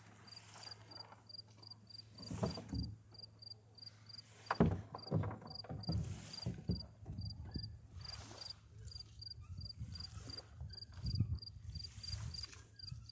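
A cricket chirping steadily at one high pitch, about four chirps a second, over occasional low thumps and rumbles. The loudest thump comes about four and a half seconds in.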